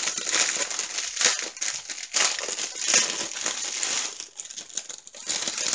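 Clear plastic bag of diamond painting drill packets crinkling irregularly as hands handle it and the small plastic packets inside.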